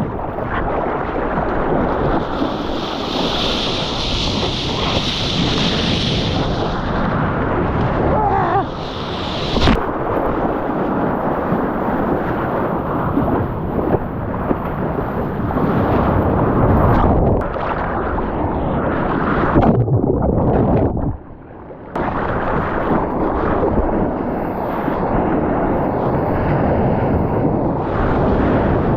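Wind buffeting the microphone: a loud, steady rumbling that drops out briefly about three quarters of the way through.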